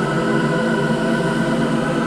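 Dark ambient horror drone: a dense cluster of steady held tones over a low rumbling hiss, unchanging throughout.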